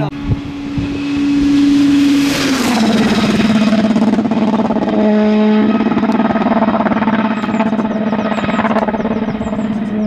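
Rally car engine running hard as the car approaches along the stage; its note drops a step about two and a half seconds in, then holds steady.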